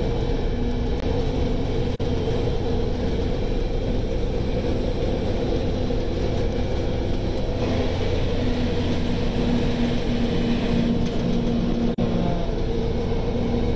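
Heavy truck's engine and road noise heard inside the cab while cruising at highway speed: a steady low drone.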